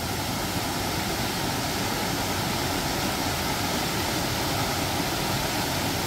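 Small waterfall in a mountain stream pouring over boulders into a pool: a steady rush of falling water.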